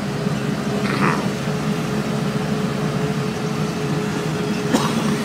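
Auto-rickshaw engine running steadily under way, heard from inside the open passenger cabin, with a steady hum and road noise.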